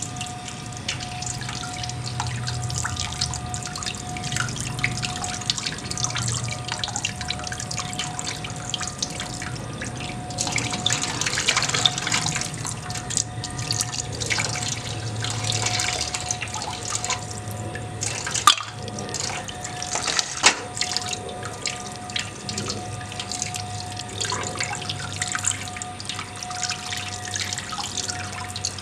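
Thin stream of tap water splashing over hands as they rinse and clean a giant African snail, with many small clicks and taps. Two sharper knocks come about two-thirds of the way through.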